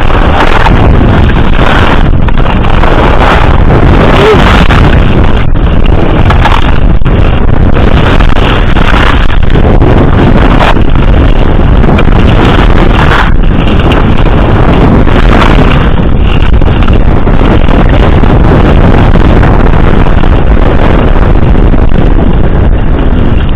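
Loud, steady wind rushing over the microphone of a skier's camera on a fast downhill run, with the skis scraping over the snow underneath.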